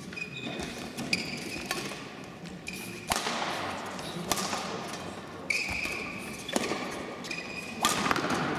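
Badminton rally: the shuttlecock is struck back and forth with rackets, a sharp hit roughly every second, about six in all. Short high squeaks, typical of court shoes on the floor, come between and with the hits.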